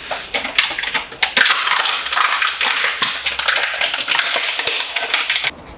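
Wood touch-up marker tapping and scratching quickly against wooden dashboard trim: a few sharp taps, then a dense run of rubbing and tapping that stops abruptly near the end.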